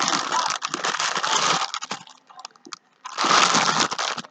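Crinkling and crackling of stiff plastic sandwich wrapping being pulled and torn at by hand, a dense stretch for the first second and a half, then a pause and another burst about three seconds in. The wrap is taped down hard and will not come open easily.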